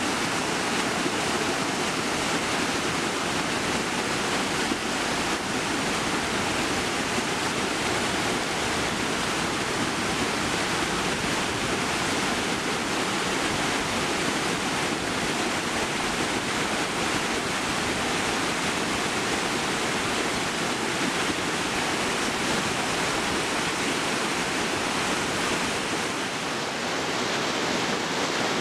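River rapids: fast water rushing and churning over boulders, a steady, dense rush of white water.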